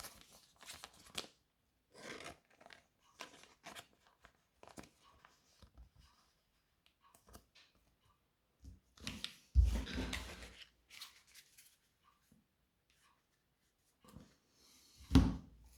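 A trading card being handled and slid into a plastic card sleeve: intermittent soft rustling, crinkling and small clicks of plastic and card. There is a dull thump about ten seconds in and another near the end.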